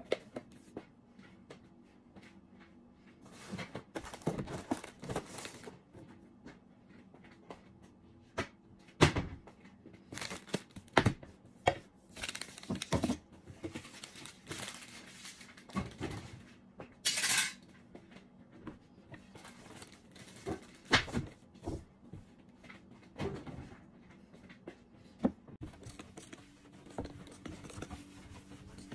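Household cleaning sounds at a wooden table: irregular knocks and clatters of small objects being picked up and set down, with crinkling and rustling of paper napkins or towels as the table is cleared and wiped. A short hiss comes about halfway through, over a faint steady hum.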